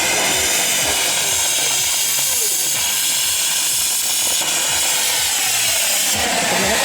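A lit firework giving out a steady, loud hiss as it sprays sparks.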